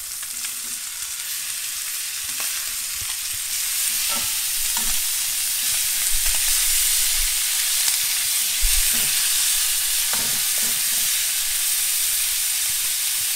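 Bone-in pork chops sizzling in olive oil in a hot cast-iron skillet as they are turned over with metal tongs. The sizzle grows louder over the first few seconds as the raw sides go down on the hot pan, with several short clicks of the tongs against the skillet.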